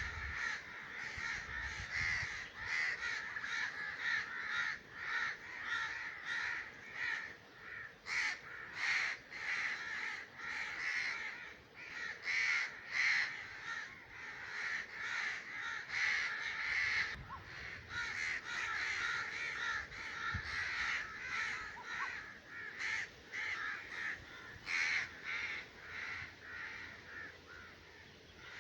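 Crows cawing over and over, a long series of short calls following one another closely.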